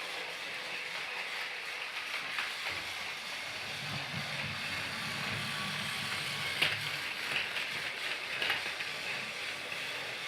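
Motorised Thomas the Tank Engine toy train running: a steady mechanical whir from its small gear motor, with a low hum for a few seconds midway and a few sharp clicks in the second half.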